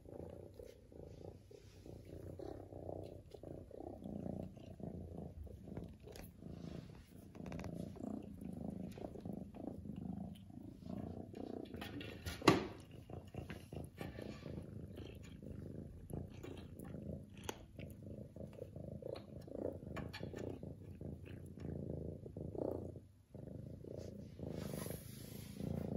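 Orange tabby cat purring loudly and continuously, the rumble swelling and fading every couple of seconds. A single sharp knock sounds about halfway through, with faint small clicks here and there.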